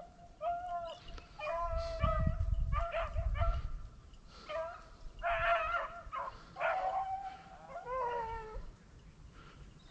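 Rabbit hounds baying on a rabbit's trail: a string of drawn-out, pitched bawls from more than one dog, with two voices overlapping near the end.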